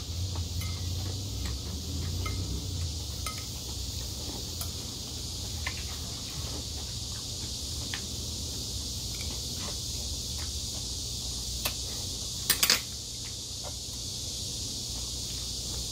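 Close-up eating sounds: chewing a mouthful of seafood and rice, with light clicks of metal chopsticks against a porcelain bowl, over a steady high hiss. About three-quarters of the way through, a brief cluster of louder clinks from the chopsticks on the bowl.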